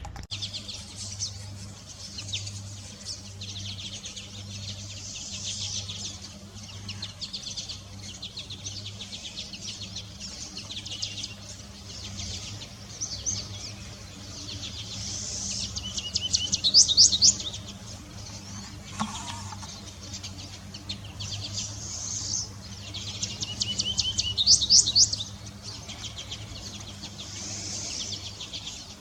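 Several wild birds singing and chirping in repeated high phrases, with two louder runs of rapid high notes, one a little past halfway and one near the end. A faint steady low hum lies underneath.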